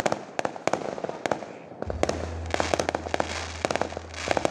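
Fireworks going off: a rapid, irregular string of sharp bangs and crackles from bursting aerial shells. A steady low rumble joins about two seconds in.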